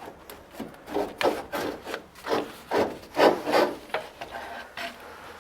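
Old air filter being pulled out of its slot in a home HVAC unit, a series of rubbing, scraping strokes as it slides against the cabinet.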